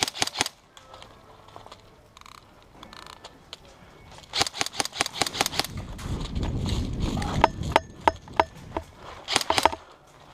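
Airsoft gun firing in rapid strings of sharp shots, about ten a second: a short burst at the start, a longer one about four seconds in, and another near the end. A low rumble runs through the middle.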